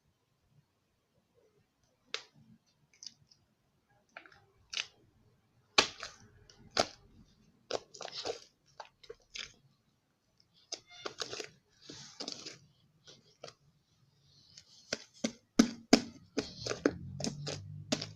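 Slime being squeezed and stretched by hand, making irregular pops and crackles that come more often toward the end.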